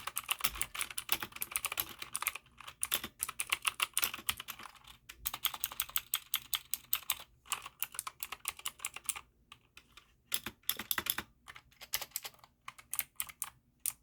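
Typing on a mechanical keyboard with clicky Outemu blue switches: a rapid run of sharp clicking keystrokes, dense for most of the stretch, then thinning into shorter bursts with pauses near the end.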